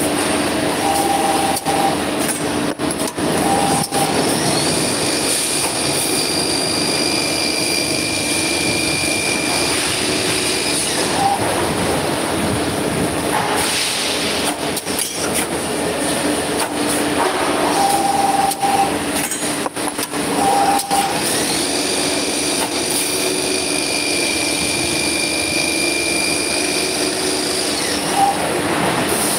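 Copper tube cutting and end-forming machine running through its working cycle, a loud steady mechanical noise. Twice a high steady whine holds for about six seconds, and shorter tones and sharp clicks come between these spells.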